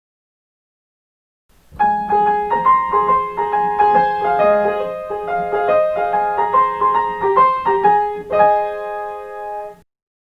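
Piano playing a short chime melody, a train's on-board announcement chime arranged for piano. It comes in about two seconds in as a run of quick notes and ends on a held chord near the end.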